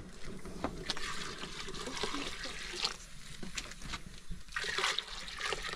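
Milk being poured from an enamel pot into a large pot of cooking rice: a splashing liquid pour in two stretches, with a few light clicks.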